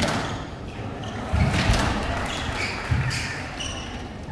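Squash rally on a court: the ball struck by rackets and hitting the walls in sharp knocks, heavy footfalls thudding on the wooden floor, and rubber-soled court shoes squeaking briefly.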